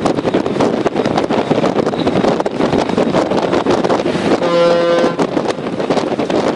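Strong wind buffeting the microphone on a warship's deck at sea, with one short blast of the ship's horn about four and a half seconds in, part of a series of horn warnings to a vessel coming dangerously close.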